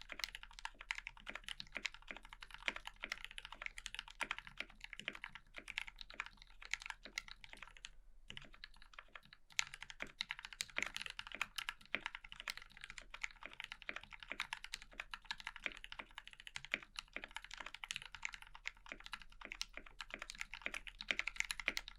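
Fast typing on a KBDfans 5 Degree mechanical keyboard: lubed and filmed Gateron Ink Black linear switches in a brass plate, under GMK Eclipse keycaps, giving a steady stream of key clacks. The typing stops for about a second, roughly eight seconds in.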